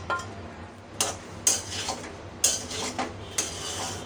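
Spatula scraping and clattering against a karahi in irregular strokes, stirring vegetables into cooked rice for fried rice.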